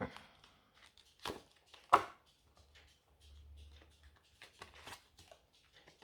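Tarot cards being handled and laid down on a table: a few sharp taps and slaps of card on card and on the tabletop, the loudest about two seconds in.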